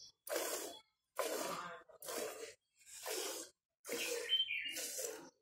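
Cow being milked by hand into a steel pail: milk squirting into the milk already in the pail in short spurts, one with each squeeze, about one a second.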